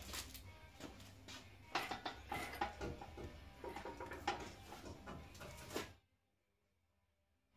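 Irregular metallic knocks and clanks from a steel ARB winch bumper, hung from an engine hoist, being shifted and nudged into place against the frame brackets; the sound drops out about six seconds in.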